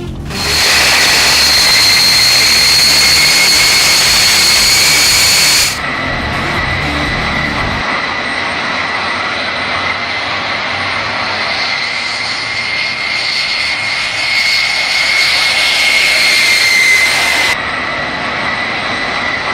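Homemade gas-turbine jet engine running at steady speed: a loud roar with a high, steady whine over it. The sound changes abruptly about six seconds in and again near the end, as between takes.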